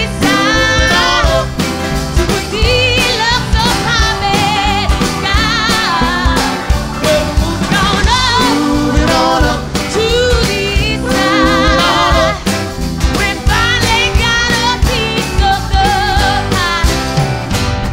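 Live band playing a TV-theme medley: a singer's voice with strong vibrato over drums, bass, guitars and keyboards.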